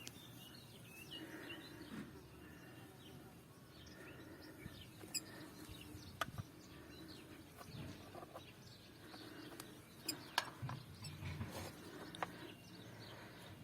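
Faint, scattered small clicks and clinks of motorcycle wheel parts being handled and fitted by hand, with a single bird chirp about five seconds in.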